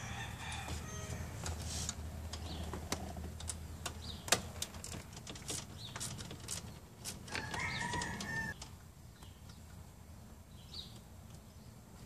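Micro quarter-inch ratchet with a Torx T20 bit clicking in short, irregular strokes as it backs out the short screws holding an ignition switch under a dashboard. One sharp click about four seconds in is the loudest. Brief squeaky tones come near the start and again about seven and a half seconds in.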